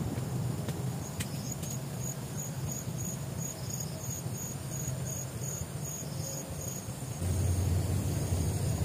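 An insect chirping in a high, even pulse of about two to three chirps a second, stopping about seven seconds in, over a low rumble that grows louder near the end.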